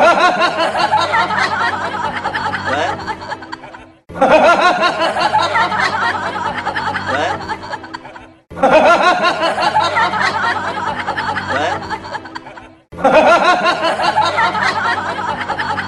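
Canned laughter loop: the same burst of many voices laughing and snickering starts loud and fades away, repeating about every four seconds, with music underneath.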